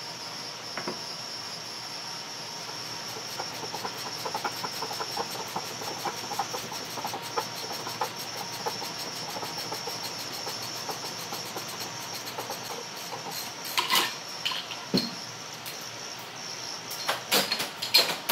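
Parts of a disassembled electric motor being handled on a workbench: light rubbing and scraping for several seconds, then a few sharp metal clanks, one about fourteen seconds in and a cluster near the end.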